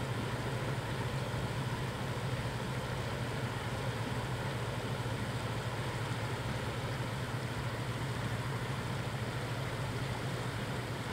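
A steady, even engine drone with a constant low hum under it, unchanging throughout.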